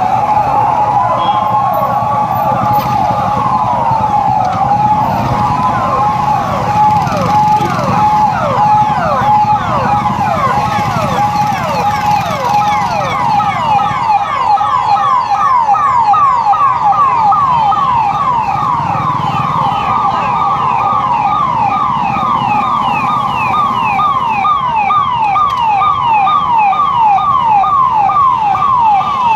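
Several police vehicle sirens sounding together: a slow rising-and-falling wail and a steady tone in the first few seconds, under rapid repeated downward yelps that keep going throughout, over a low rumble.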